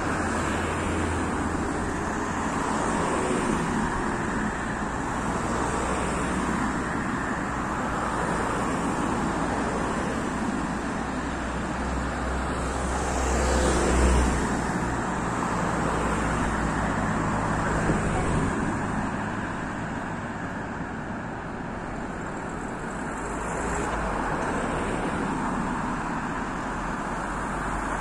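Steady rushing noise of a tall mountain waterfall, swelling briefly about halfway through.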